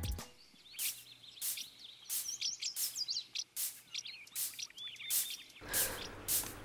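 Birds chirping and twittering in short high calls over faint outdoor background noise, with a fuller low ambient noise coming in near the end.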